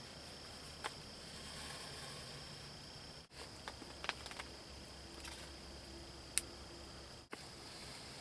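Quiet outdoor background with a steady high-pitched insect drone and a few sharp clicks; the sound cuts out briefly twice.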